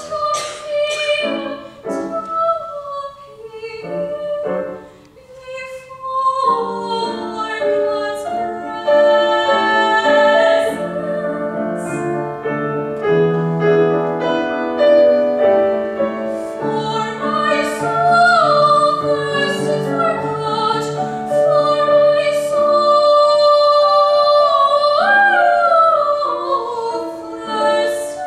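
A young female soloist singing a classical song in operatic style with vibrato, accompanied by piano.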